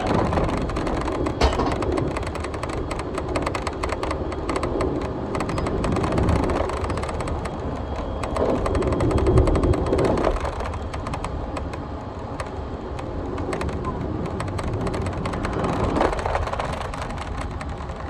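Running noise of a train heard from inside the passenger car: a steady low rumble with dense, rapid clicking and rattling, swelling a few times.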